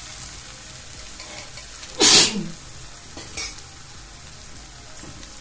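Steady sizzle of tomato masala frying in a pan as curd is spooned out of a steel bowl onto it, with small spoon scrapes. About two seconds in comes a brief loud burst, the loudest sound here, and a smaller one about a second later.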